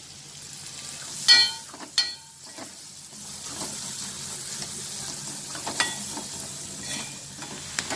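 Sliced onions sizzling in hot oil in a metal kadai as they are sautéed soft, stirred with a steel spoon that scrapes and clinks against the pan. Two sharp ringing clinks come between one and two seconds in.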